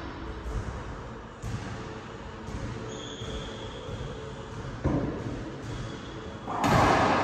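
A racquetball bounced on a hardwood court floor before a serve, with a sharp crack of ball on strings about five seconds in. Near the end a loud steady rushing noise comes in.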